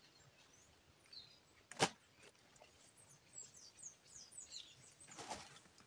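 A single sharp chop of a brush sickle blade about two seconds in, with small birds chirping in short, quick falling notes and a brief rustling swish near the end.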